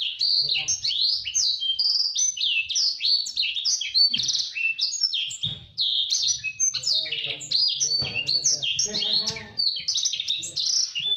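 A blacksang, a blackthroat (black-throated canary) × sanger hybrid finch, singing a long, fast, unbroken song of quick rising and falling chirps and trills packed tightly together.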